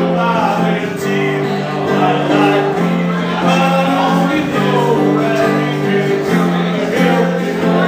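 Man singing to his own strummed acoustic guitar, a live song with the chords changing every second or so.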